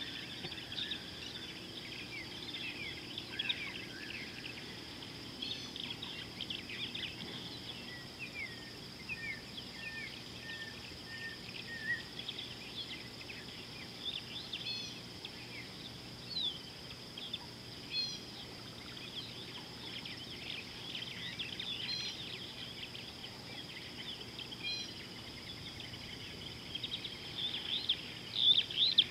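Several wild birds chirping and calling, with a run of evenly repeated notes partway through and busier, louder calling near the end, over a steady high-pitched insect drone.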